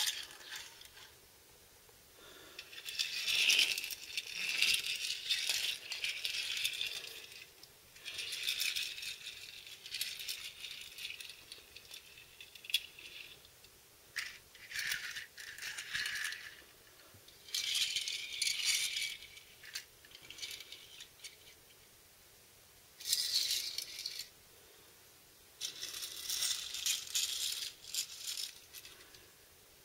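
Small die-cast toy cars pushed by hand across a hard floor, their little wheels rattling as they roll, in about six separate runs lasting a second to several seconds each.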